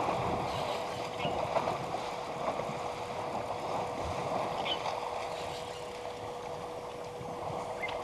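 Water sloshing and splashing as a herd of African elephants swims across a dam, with a steady faint hum underneath.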